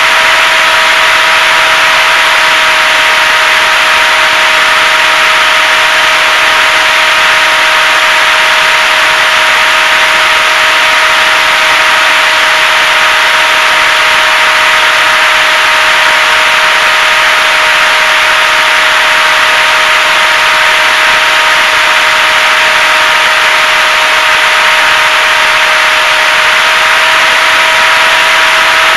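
HobbyZone Super Cub RC plane's electric motor and propeller running at a steady pitch, heard from the onboard camera with a loud rush of air over it.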